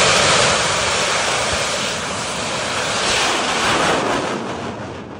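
A bang fai saen, a large Isan black-powder rocket, lifting off from its launch tower: its motor burns with a loud, even rushing noise that fades over the last second or so as the rocket climbs away.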